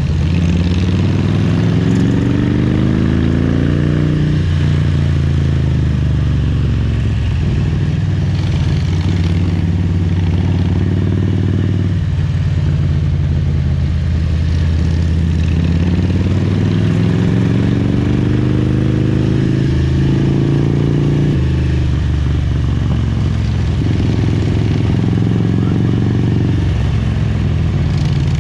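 Harley-Davidson Road King's Twin Cam 88 V-twin engine under way, twice climbing in pitch as the rider opens the throttle, then dropping back as he eases off, about four seconds in and again around twelve and twenty-one seconds.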